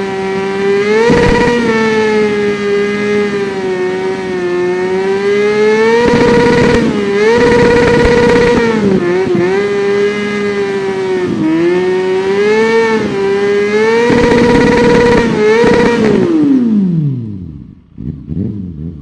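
Kawasaki Ninja 400's parallel-twin engine revved hard and held at high revs, its pitch dipping and climbing a little as the throttle moves. Near the end the revs fall away steeply and the engine drops back.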